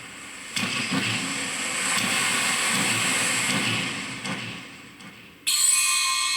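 Pachinko machine playing a rushing, hissing noise effect with a low rumble underneath that fades away, then cut off by the machine's music starting abruptly near the end.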